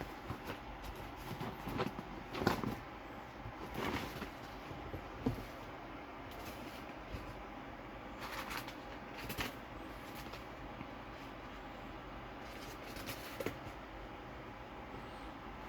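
Scattered knocks, taps and rustles of a cardboard figure box and its packaging being handled and opened, over a steady low background hum.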